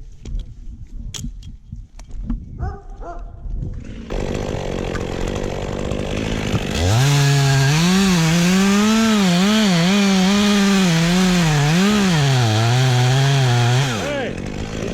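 Gas chainsaw starting to run about four seconds in, then at full throttle for about seven seconds with its pitch rising and falling under load as it cuts wood, before dropping back to idle.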